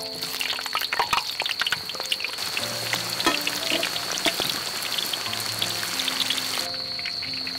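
Jackfruit pieces frying in hot oil in a wok, with a dense crackling sizzle that thins out to a quieter hiss near the end.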